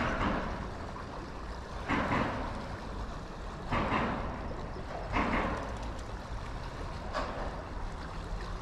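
Creek water running, with a short rush of splashing noise every second or two, five in all.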